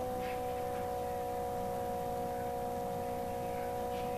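Steady electrical hum: a few high, even tones over faint hiss, the constant background noise of a home screen-recording setup, with no typing or clicks.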